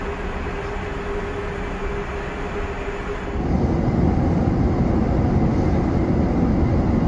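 Steady Airbus A380 cabin noise in cruise: first a hiss with a faint steady hum, then about three seconds in a louder, deeper rumble of engine and airflow noise from a seat over the wing.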